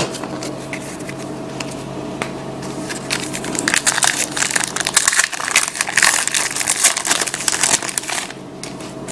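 Plastic-foil wrapper of a trading-card pack crinkling as it is torn open and handled, a dense crackle that is busiest in the middle of the stretch.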